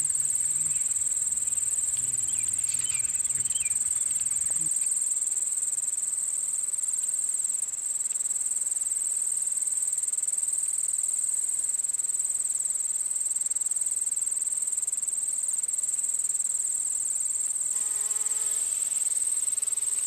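A steady, high-pitched insect chorus of continuous shrill trilling, with a few short chirps in the first few seconds. Near the end a pitched tone joins in.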